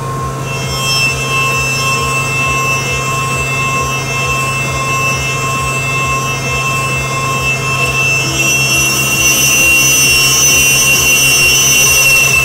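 Heller CP8000 machining centre milling a racing wheel's hub counterbores with a 12 mm carbide cutter spinning at about 8,000 rpm: a steady high-pitched machining whine over a low hum. It grows louder and brighter over the last few seconds.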